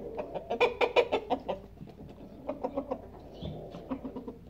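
Chickens clucking: a quick run of short clucks in the first second and a half, then more clucking after a brief lull.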